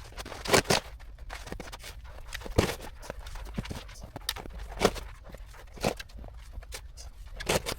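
Irregular crunching in snow: short, sharp crunches about once a second, uneven in spacing and strength.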